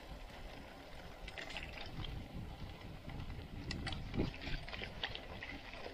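Mountain bike rolling over a rutted dirt trail: a steady low rumble with scattered rattles and clicks from the bike, and a brief falling squeak about four seconds in.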